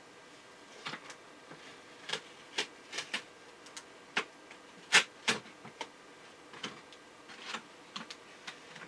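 Irregular light clicks and taps of small parts and tools being handled inside an opened iMac, about a dozen scattered strikes, the loudest about five seconds in.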